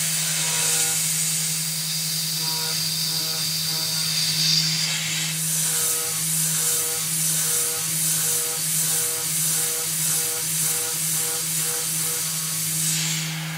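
Tormach 440 CNC mill's spindle running with an end mill cutting an aluminum part, a steady hum under a high hiss. From about five seconds in the cut swells and fades about twice a second, and near the end the hiss cuts off while the spindle keeps running.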